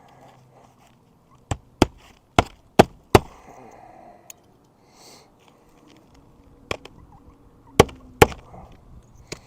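Hammer driving roofing nails through an asphalt shingle into wooden plank decking: a quick run of five strikes, then after a pause a few more, two of them sharp and loud near the end.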